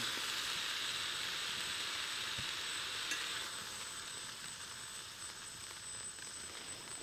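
Pork neck frying in a cast-iron pan: a steady sizzle that slowly dies down over the second half.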